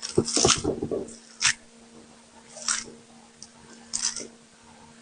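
Jelly being squeezed and popped: wet squishing and crackling in about four short bursts, the first the longest.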